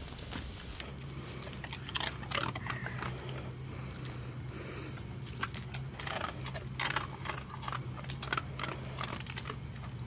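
A dog eating food handed to it, with irregular sharp clicks of chewing and crunching.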